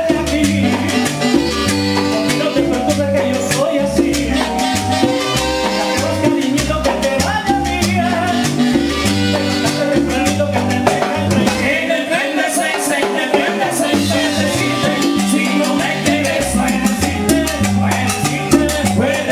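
Live Latin tropical dance band playing, with keyboards, drum kit and a scraped güiro keeping a steady dance beat under a stepping bass line.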